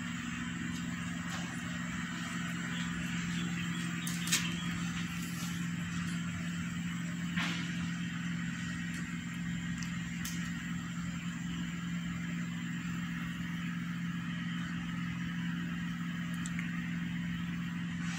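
A steady low mechanical hum, unchanging throughout, with a few faint clicks about four, seven and ten seconds in.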